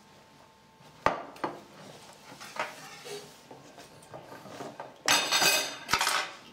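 A plate set down on a table with a sharp clack about a second in, followed by light clinks of cutlery against the plate. A louder rough burst of noise lasting about a second comes about five seconds in.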